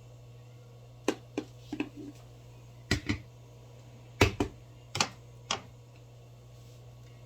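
A run of about a dozen sharp clicks and knocks spread over four or five seconds, irregularly spaced, the heaviest about four seconds in, over a steady low hum.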